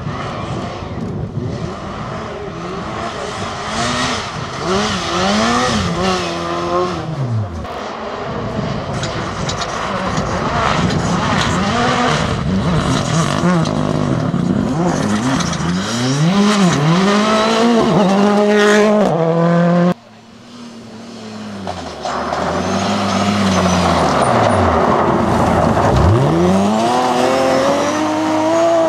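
Rally cars driven flat out on gravel stages, one after another. Their engines rev hard and fall back repeatedly through gear changes, over the noise of tyres on loose gravel. The sound drops off abruptly about two-thirds of the way through, then picks up again with the next car.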